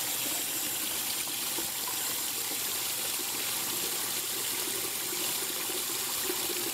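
Water running steadily, an even splashing rush.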